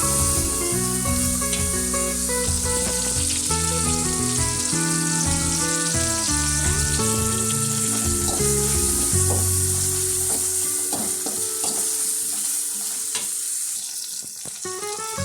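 Food sizzling as it fries in oil in a pan, stirred now and then with a few clicks of the utensil, under background music; the sizzle eases a little near the end.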